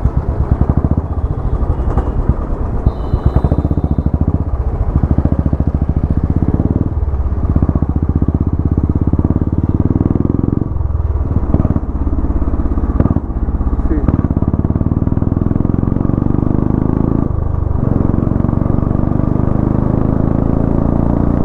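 Royal Enfield motorcycle's single-cylinder engine and loud aftermarket exhaust running under way, pulling through the gears. The pitch rises in each gear, with brief drops at the shifts, about five times.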